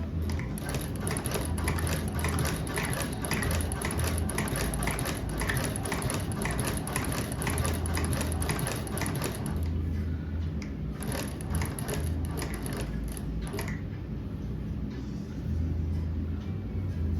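Manual cobbler's sewing machine stitching thick leather: a steady run of needle strokes, about three a second, then a short pause and a few more strokes before it goes quieter.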